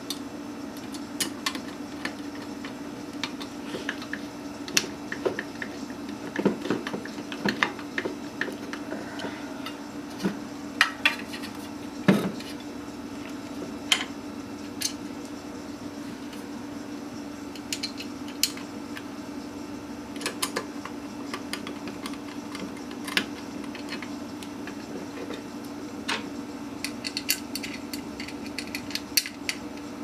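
Irregular metallic clicks and clinks from handling a hard drive, screws and a metal drive caddy during mounting, with a steady low hum underneath.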